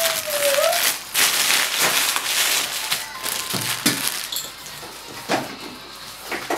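Crispbread being bitten and chewed: dense, crackly crunching for the first few seconds, then a few separate light knocks.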